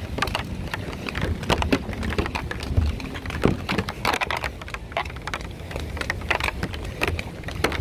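Rain falling, with many irregular sharp drip and tap sounds over a steady hiss and a low rumble.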